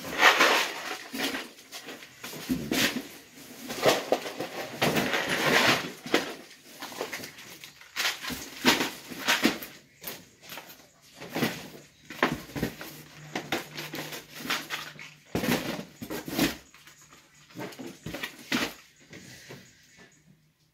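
Irregular knocks, clunks and rustling of kitchen items being picked up from the counter and set into a cardboard moving box, thinning out near the end.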